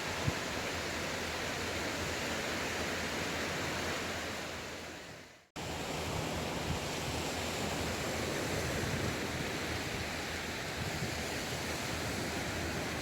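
Sea waves washing on the shore, a steady rush of surf. It fades out to silence about five seconds in and cuts back in abruptly, an edit in the recording.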